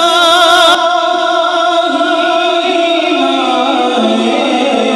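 Male naat reciter singing a long, ornamented note with a wide wavering vibrato, settling into steadier held notes after about a second.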